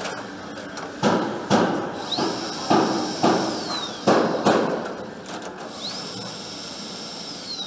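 Car-body assembly line sounds: a handful of sharp metallic bangs in quick succession, and twice a right-angle power screwdriver's whine that rises, holds for a second or two while it drives a bolt into the body panel, then winds down.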